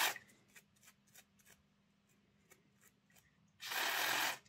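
A few faint clicks as a small locomotive gear is handled, then, about three and a half seconds in, a short hiss of aerosol contact cleaner sprayed onto the gear to clean off dried-up grease. The hiss lasts under a second, starting and stopping sharply.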